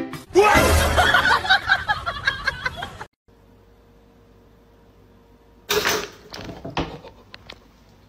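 A loud, busy jumble of sound for the first three seconds, then a quiet stretch with a faint steady hum. About six seconds in, a pop-up toaster springs up with a sudden sharp snap, followed by scattered clicks and knocks as the cat leaps off the kitchen counter onto the floor.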